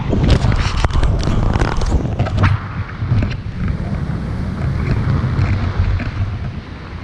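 Airflow buffeting the camera microphone in flight under a paraglider, a steady low rumble. In the first two and a half seconds a run of clicks and rustles comes from the camera being moved about on its pole.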